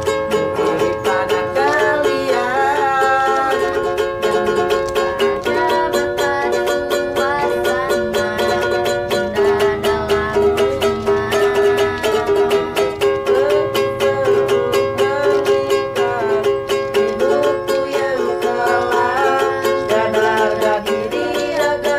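A ukulele strummed in steady chords while a young man sings a melody over it.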